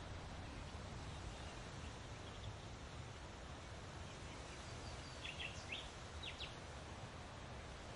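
Outdoor wind noise with a steady low rumble, and a small bird chirping a few quick notes about five seconds in.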